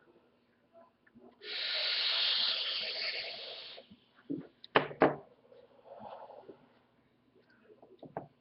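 A long breathy rush of air lasting a little over two seconds, strongest at first and then fading, followed by a few sharp clicks and knocks.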